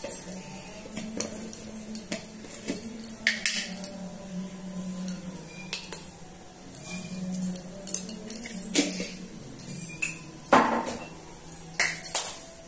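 A metal spoon clinking against a glass while stirring, in quick irregular taps, over a steady low hum.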